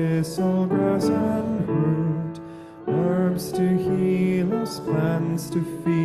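A hymn sung with words to piano accompaniment, in long held notes.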